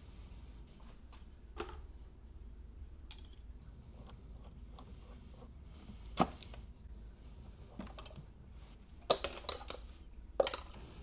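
Scattered clicks and knocks of plastic engine intake tubing and hose clamps being worked loose with a screwdriver, with one sharp click about six seconds in. Near the end comes a clatter of several knocks as a removed rubber intake hose and its metal clamp are dropped onto a concrete floor.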